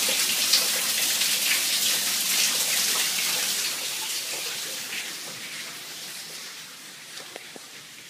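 Water from a burst attic water heater pouring and dripping through the ceiling into a bathtub, a steady splashing hiss that fades away over the second half.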